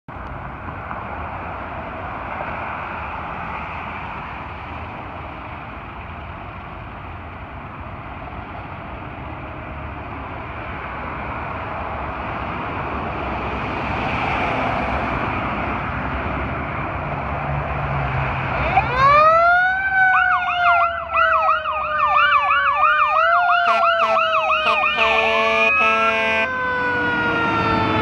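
Street traffic noise, then about two-thirds of the way through a 2003 International/Marion fire rescue truck lights up its sirens. A Federal Q2B mechanical siren spins up in a fast rising wail, then winds down in a long, slowly falling tone. Over it a Whelen electronic siren yelps rapidly, and a few short air horn blasts sound near the end.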